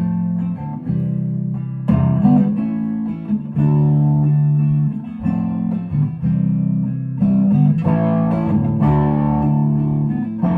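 Mule Mavis guitar playing chords in an instrumental passage, with the chord changing every second or two.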